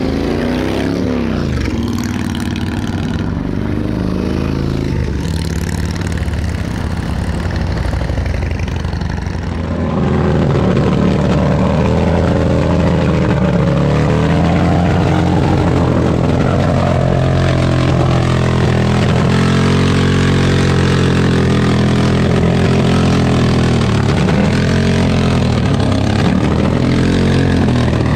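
Motorcycle engines running as bikes ride past, their pitch rising and falling. About ten seconds in this gives way to a louder custom chopper engine revving hard over and over during a burnout.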